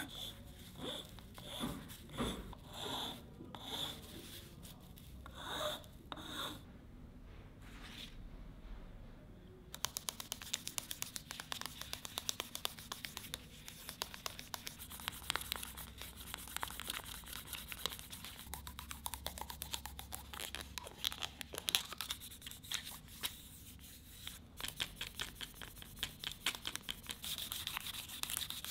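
Flat steel file drawn across a small wooden handle in slow, even strokes about once a second. After a short pause, fine-grit sandpaper is rubbed by hand over the wood, making a dense, fast, crackly scratching.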